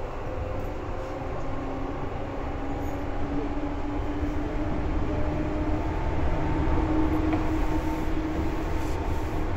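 Seibu 2000 series electric train running, heard from inside the car above its line breaker: a low rumble of wheels on rail with a motor whine rising slowly in pitch and getting louder as the train picks up speed.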